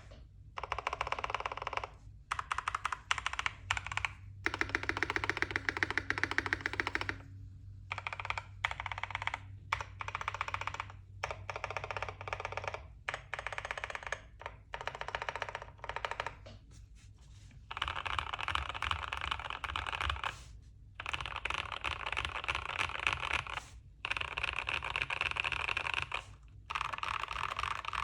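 Typing on a KBD67 MkII custom mechanical keyboard with lubed Gazzew Boba U4T 62 g tactile switches, a PLA plate, plate and PCB foam, and PBT keycaps. Rapid keystrokes come in runs of a few seconds, with short pauses between them.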